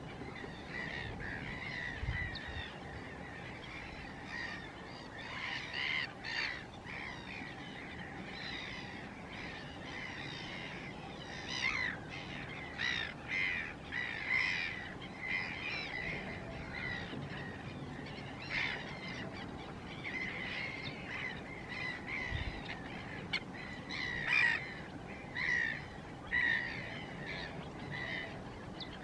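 A mixed waterbird flock of Chilean flamingos and gulls calling: many short, harsh calls repeat and overlap over a steady background hiss, growing busier about halfway through.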